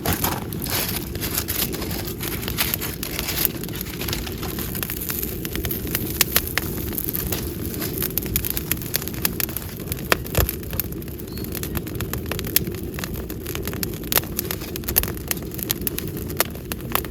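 Firewood burning in a campfire, crackling with frequent sharp irregular pops over a steady low rush of flame.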